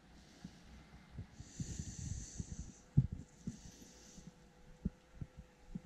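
Quiet handling noise from jigging a rod over an ice hole: scattered soft knocks and two sharper clicks, with two breaths hissing close to the microphone.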